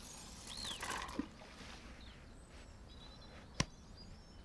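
An angler's pike rod and reel being handled after a recast: a short rush of noise in the first second, then one sharp click about three and a half seconds in. Faint bird chirps run underneath.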